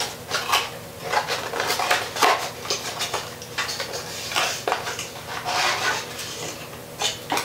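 A small cardboard box being opened and handled, and a boxed CPU heatsink-fan with metal fins slid out of it: irregular scrapes, rustles and light knocks of cardboard and metal.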